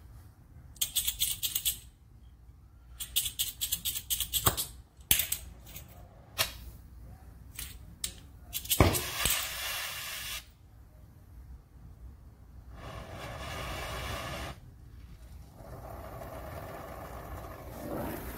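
Metal clicks and short rattling, scraping bursts, then a sharp snap about nine seconds in, as a gas brazing torch is readied and lit. It is followed by a steady hiss of the torch flame from about sixteen seconds.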